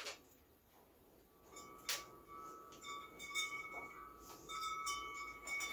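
Faint metal clinks of bolts and mount hardware being worked by hand on a dirt bike's engine mount. From about a second and a half in, a thin steady whistle-like tone sounds under the clinks.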